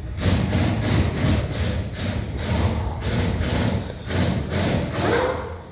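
Hand ratchet worked back and forth in quick rasping strokes, about three a second, loosening the 24 mm transfer case drain bolt. It stops near the end.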